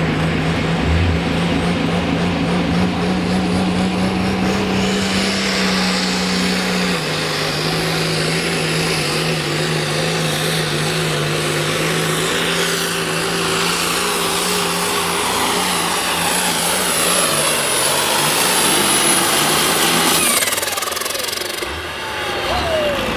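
John Deere pulling tractor's engine running hard under load as it drags a weight-transfer sled, with a thin high whistle above it that climbs slowly. Near the end the whistle falls away and the engine winds down as the pull ends.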